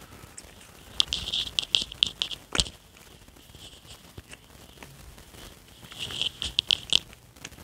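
Quick clicks and scrapes of a hydraulic master cylinder being handled as a band is worked off it. They come in two bursts, one from about a second in ending in a sharper click, and another around six seconds in.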